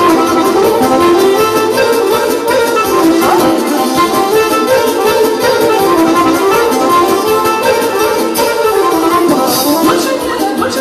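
Live band playing a Romanian hora dance tune through a loud sound system: a winding melody over a steady beat.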